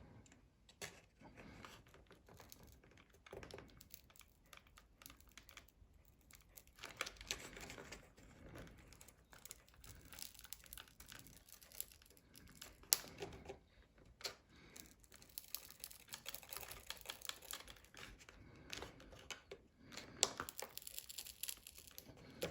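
Faint, irregular clicking, scraping and crinkling of a pry tool working under an iPhone 5S battery that is held by strong adhesive, with a sharper click about 13 seconds in.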